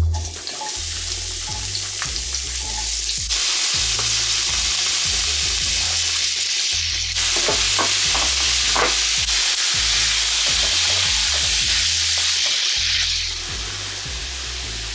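Sliced smoked sausage and onion sizzling as they fry in a skillet: a steady high hiss, with a few short stirring strokes in the middle.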